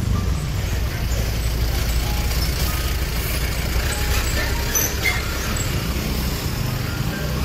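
A road vehicle's engine running with steady road noise, mostly a low rumble.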